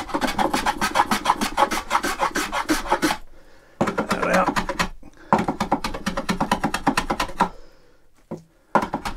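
Small hand plane cutting along a wooden edge in three strokes: a long one of several seconds, a shorter one, then another of about two seconds. Each has a fast, even chattering rhythm. A couple of light knocks come near the end.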